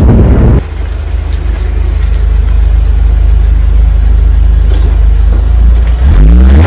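Steady low rumble of a car engine and road noise. Near the end the engine revs up, its pitch rising as the car accelerates.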